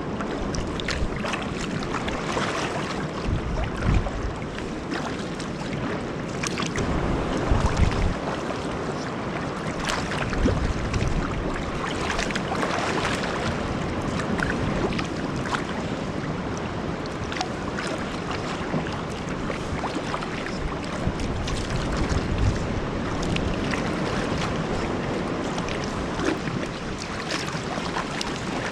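Steady rush of sea water and waves around a sea kayak, with wind gusting on the microphone in low rumbles, strongest around four and eight seconds in.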